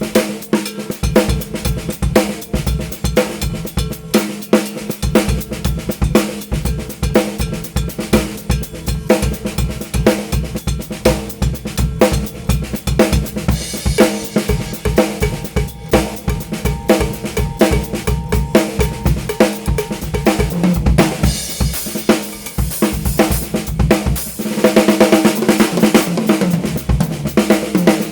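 Drum kit played in a steady groove built around a handmade Thai solid-wood snare drum, hollowed from a single log, with bass drum and hi-hat. Cymbals crash and wash in over the last few seconds.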